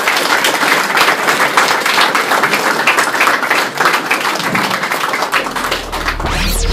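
Audience applauding, a dense irregular clatter of many hands clapping. Electronic music with a deep bass fades in near the end.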